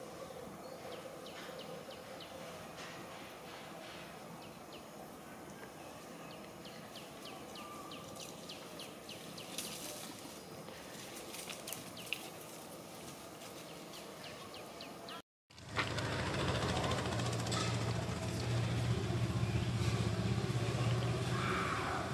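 Outdoor ambience in a tree canopy with many short, high chirps repeating through it. About 15 seconds in it cuts off, then comes back louder with a steady low hum under it.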